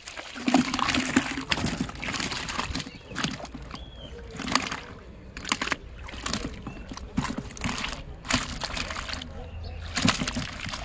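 Irregular splashing and sloshing of shallow muddy water as hands work in it and handle fish in a plastic bucket.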